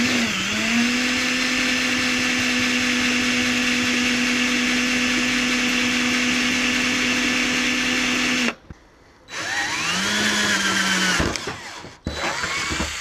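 Electric drill with a 13 mm bit boring through the sheet-metal front wing: a steady motor whine for about eight seconds, then a pause, a second run of about two seconds whose pitch sags slightly under load, and a brief burst near the end. The large bit is hard work to get through the metal in one go.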